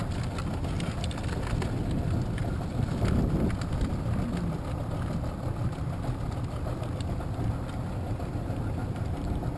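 A small boat's motor idling steadily with a low, even rumble, with a few light ticks in the first few seconds.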